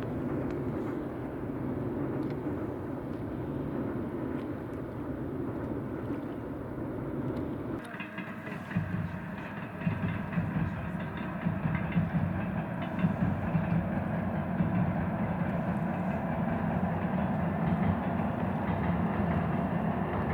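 Freight train crossing a rail bridge: a steady rumble that turns abruptly louder about eight seconds in, with the clatter of wheels over the rails and repeated sharp knocks.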